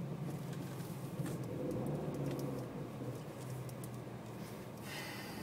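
Stock Renault Mégane RS250's turbocharged 2.0-litre four-cylinder engine idling and pulling gently at low revs, heard from inside the cabin, with light clicks and rattles.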